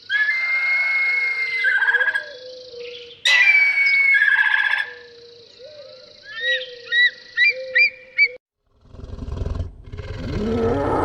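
Bird calls: whistled notes, then a run of short rising chirps about six to eight seconds in. After a short break, a deep animal growl builds near the end.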